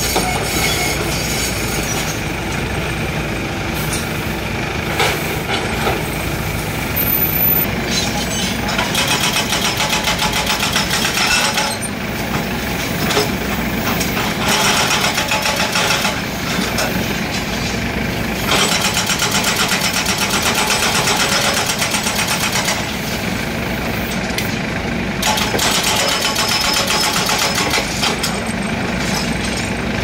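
Hydraulic breaker on a LiuGong 915E excavator hammering concrete in several bursts of rapid, even blows a few seconds long, over the excavator's steadily running diesel engine.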